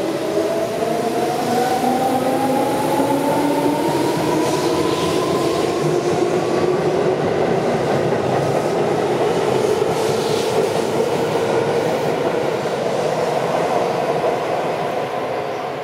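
Tobu 9000 series electric train pulling away from the platform: its motor whine rises in pitch over the first several seconds as it picks up speed, over steady wheel and running noise. The sound fades near the end as the last car passes.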